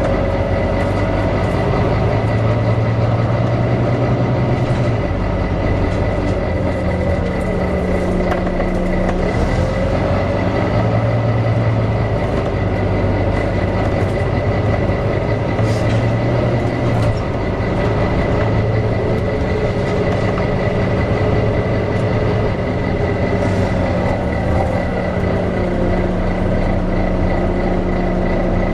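Volvo B9TL double-decker bus's engine cooling fan whirring over the running engine, its pitch gliding up or down between two steady speeds several times as the fan speeds up and slows down. A thin, steady high whine runs alongside.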